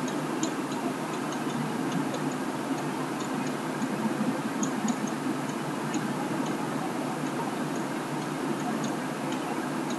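Pen stylus tapping and clicking on a tablet screen while writing, many small irregular ticks over a steady low hum of room or microphone noise.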